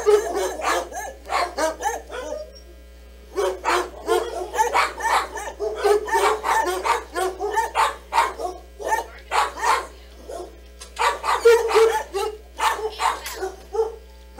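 A dog barking in quick runs of short, sharp barks, with a pause about two seconds in and another about ten seconds in.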